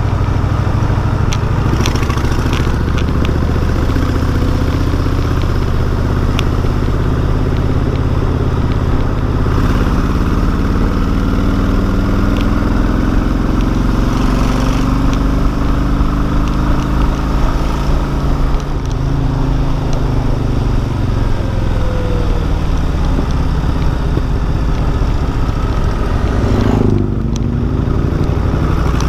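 Cruiser motorcycle engine under way, climbing in pitch as it accelerates past a van, then falling away as the throttle eases off, with a sudden change near the end, over steady wind and road noise.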